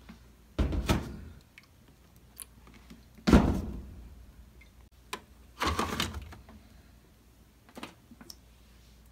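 Four thuds and sliding knocks from a Maytag washing machine's detergent dispenser drawer being handled, the loudest about three seconds in.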